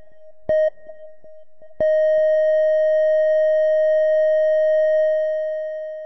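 Hospital heart monitor sound: one short beep about half a second in, then about a second later a long unbroken flatline tone that holds steady for about three seconds and fades away. It is the sign of a patient's heart stopping.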